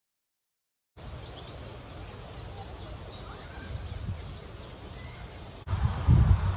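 Small birds chirping over and over, short quick calls, over a low rumble of wind on the microphone; it begins about a second in, and near the end the wind rumble jumps suddenly louder in gusts.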